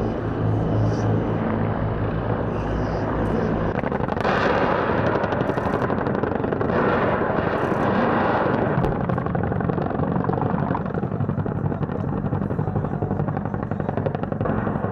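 T129 ATAK attack helicopter's rotor and turbines running steadily; about four seconds in, rapid fire from its nose cannon sets in for several seconds over the rotor noise.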